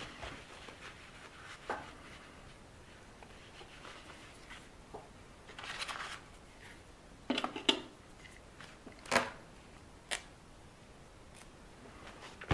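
Quiet handling sounds of hands working on an RC car tire and wheel: scattered small clicks, taps and brief rustling scrapes, a quick cluster of clicks about seven and a half seconds in and the sharpest click about nine seconds in.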